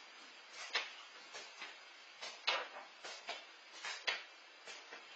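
Irregular sharp clicks and knocks, a few a second and uneven in strength, over faint steady hiss.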